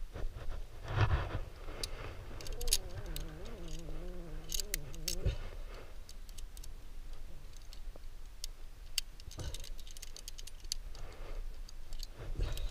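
Metal carabiners and the bolted anchor chain clinking as the climber handles them at the top of a sport route, setting up the rope to rethread the anchor: scattered light clicks and jingles, with a low thump about a second in and again near the end.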